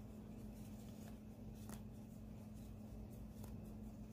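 Faint rustling and a few light ticks of yarn and a metal crochet hook being worked by hand while crocheting, over a low steady hum.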